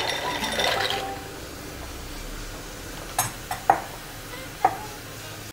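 Dry penne pasta poured into a steel pot of boiling water, a short splashing rattle in the first second, then the water bubbling steadily with a few light clicks against the pot near the middle.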